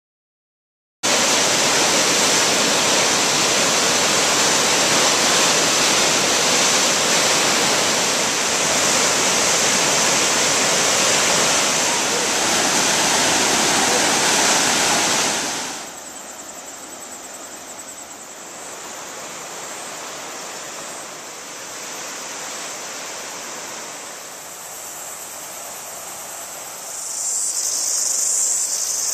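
Rushing white water of Huka Falls, loud and even. About fifteen seconds in it drops much quieter to a steady distant rush of the river, and near the end a high-pitched hiss swells up.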